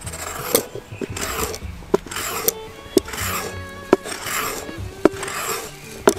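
Knife paring the inside of a wooden bowl, one rasping cut about every second. Background music with a steady clicking beat runs underneath.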